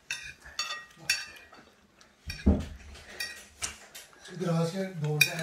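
Metal spoons clinking and scraping against ceramic dinner plates as people eat, in many short sharp clicks, with a duller knock about two and a half seconds in. Low voices talk briefly near the end.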